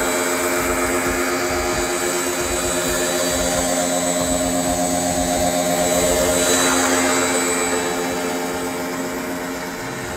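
Crown 1400-watt electric pressure washer running, its motor and pump humming steadily under the hiss of the high-pressure water spray. The sound swells a little about two-thirds of the way through.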